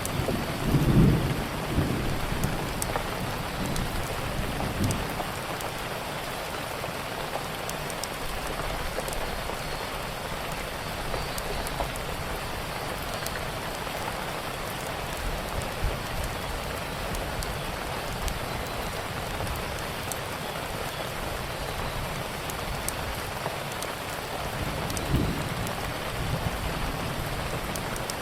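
Steady heavy rain with low rumbles of thunder about a second in and again near the end, and occasional sharp crackles from a wood fire.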